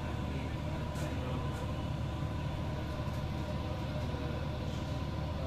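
A steady low machinery drone with a faint even hum above it, and a couple of light clicks about a second in.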